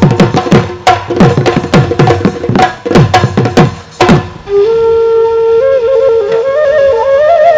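Bihu dhol drums played together in a fast rhythm, their bass strokes dropping in pitch, stopping about four seconds in. A bamboo flute then takes over alone with a melody climbing in steps.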